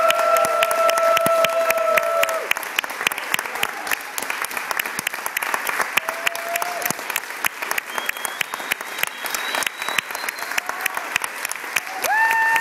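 Audience applauding steadily, with a few long, high, steady-pitched calls rising above the clapping near the start, around the middle and near the end.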